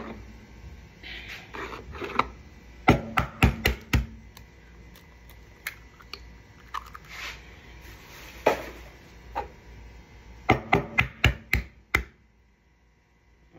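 Eggs being cracked: two runs of quick, sharp taps as an eggshell is knocked to break it, each followed by softer handling sounds as the shell is pulled apart.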